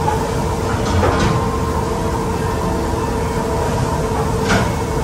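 Steady restaurant room noise with a constant hum, and a few sharp clinks of forks and knives against the plates about a second in and again near the end.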